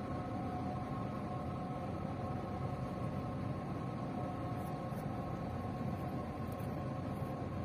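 Steady drone of large ship engines and machinery heard across harbour water: a low rumble with several steady humming tones over it.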